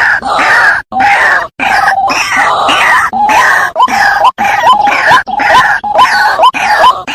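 Waterhen calling: a loud run of harsh, repeated croaking notes that breaks into separate calls about two a second in the second half.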